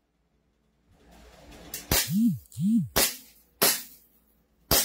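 Gas blowback airsoft pistol firing four single shots, each a sharp crack, about a second apart. Two short rising-then-falling low tones come between the first and second shots.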